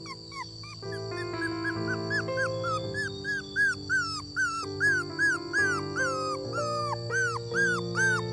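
Dog whining in a rapid series of short high cries, about two or three a second, each rising and falling in pitch, over background music with sustained chords that gets louder about a second in.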